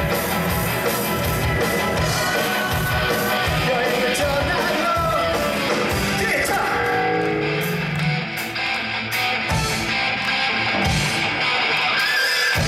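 Live rock band playing: drum kit with steady beats, bass and electric guitars through Marshall amplifiers, with long held guitar or vocal notes.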